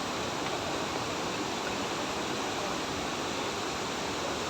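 Waterfall, a steady rush of falling water, loud enough to drown out voices.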